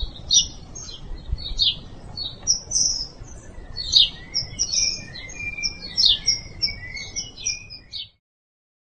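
Birds chirping, a busy run of quick short calls over a faint low background rumble, cutting off suddenly about eight seconds in.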